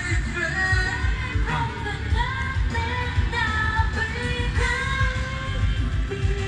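A pop-rock song with a sung vocal melody over a steady beat, played through a speaker.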